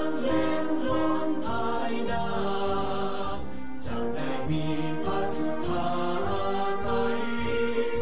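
Music: sustained chords that change every second or so over a low pulse, with no clear sung words.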